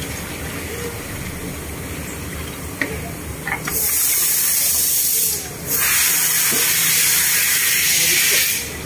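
Water being poured through a plastic funnel into a cleaning machine's tank, over a low steady hum. From about four seconds in a loud steady spraying hiss takes over, dropping out briefly about halfway through and again near the end.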